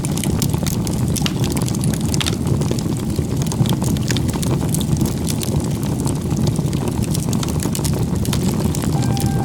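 Wood fire burning, with scattered sharp crackles over a steady low rumble.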